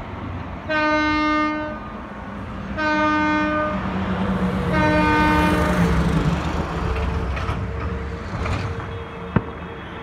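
Southeastern Class 375 train horn sounding three long single-pitched blasts of about a second each, roughly two seconds apart, over a low rumble from the depot that swells in the middle. A single sharp click near the end.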